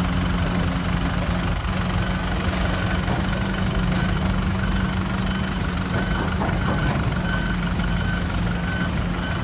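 Heavy diesel construction machinery running steadily at a low hum. From about two seconds in, a faint beep repeats at an even pace.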